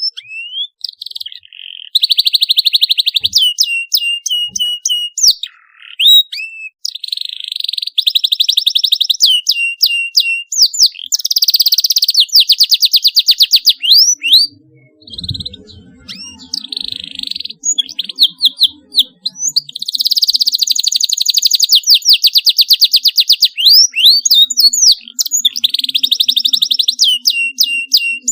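Canary singing: long, very fast trills alternating with quick rising and falling whistled notes, with only short breaks between phrases.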